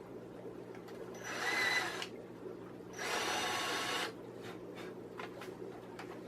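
Power drill running in two short bursts about a second long, drilling pilot holes for screws.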